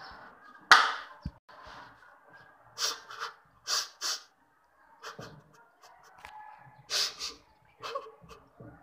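A person breathing audibly in short, sharp breaths and sniffs, several coming in quick pairs a few seconds apart.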